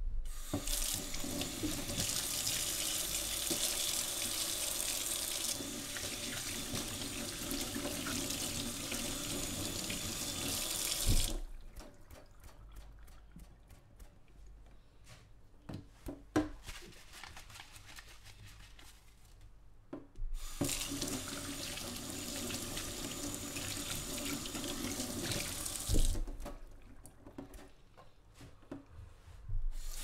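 Kitchen tap running into a stainless steel sink while tomatoes are washed by hand under the stream. The water is shut off twice, each time with a knock, leaving quieter wet handling clicks and taps. In between it is turned back on, and it comes on again at the very end.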